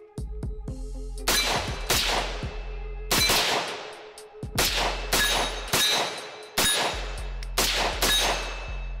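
AR-15-style rifle fired about nine times in single shots, spaced from half a second to about a second and a half apart, each shot sharp with a short ringing tail.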